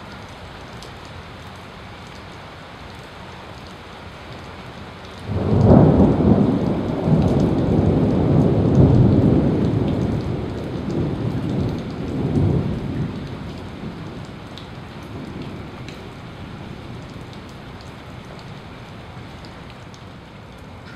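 Thunderstorm: steady rain, and about five seconds in a thunderclap breaks out suddenly into a loud rumble that swells several times before fading back into the rain some eight seconds later.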